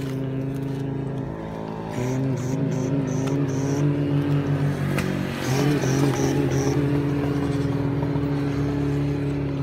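Vehicle engine running with a steady low hum that wavers slightly in pitch, dropping out briefly about a second and a half in and again around five seconds.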